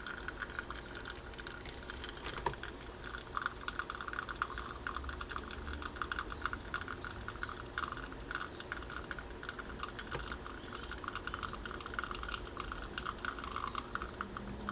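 Faint, fast irregular ticking and crackle from a La Pavoni Pro lever espresso machine while it pulls a shot under lever pressure.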